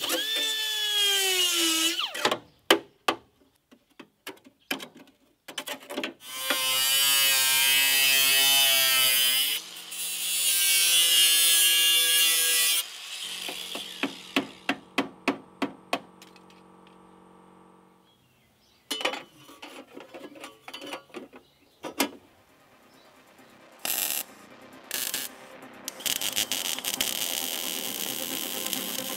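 Metalwork on a car's front body panel: a power tool whines and winds down, hammer blows strike the metal in several runs, and a high power-tool whine runs twice for a few seconds as it cuts metal. Near the end comes the steady hiss of electric welding.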